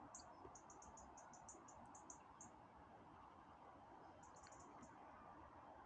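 Near silence: quiet open-air ambience, with a run of faint, high, short chirps through the first two and a half seconds and a shorter run about four seconds in.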